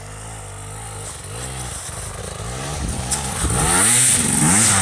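KTM enduro motorcycle climbing a snowy, muddy gully, its engine revving up and down in repeated surges as the rider works the throttle, getting louder as it comes closer.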